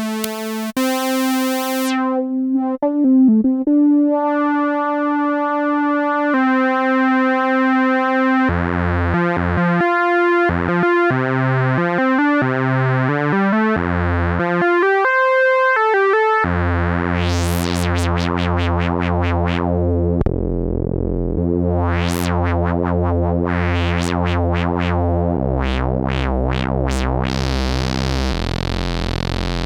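Yamaha CS01 analog monosynth playing one note at a time. It holds a few sustained notes, then plays a quick run of short notes. It ends on low bass notes whose tone brightens and darkens in repeated filter sweeps.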